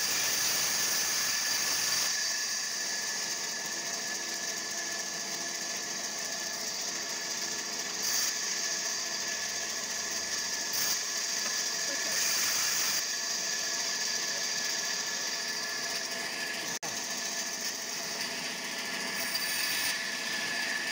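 A power tool's motor running steadily, with a steady high whine.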